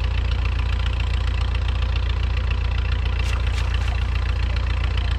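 An engine running steadily at idle: a low, even drone with rapid, regular pulsing. Two short clicks a little past halfway through.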